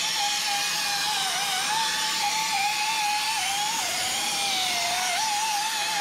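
Small corded rotary tool spinning a foam polishing pad against a plastic headlight lens, a steady high motor whine whose pitch dips briefly a few times as the pad is pressed on. This is buffing a hazy headlight to clear it.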